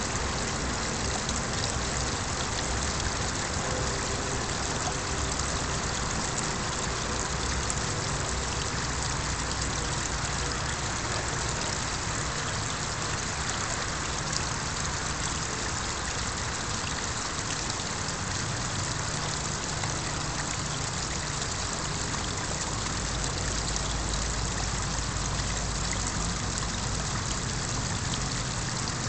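Small garden-pond waterfall splashing steadily into the pond, with a faint low hum underneath.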